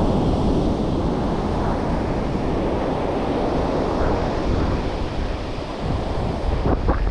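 Sea surf washing on the shore under wind buffeting the microphone: a steady rushing noise with a deep rumble that swells and eases.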